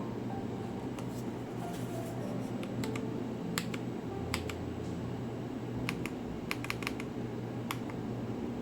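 Keys of an Akko mechanical keyboard being pressed one at a time: scattered, irregular clicks, with a few quick presses close together about six to seven seconds in.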